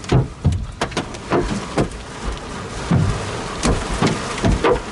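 Giant hailstones, up to softball size, slamming into a vehicle heard from inside the cabin: about a dozen irregular loud bangs with dull thuds under them, over a steady hiss of falling hail and rain.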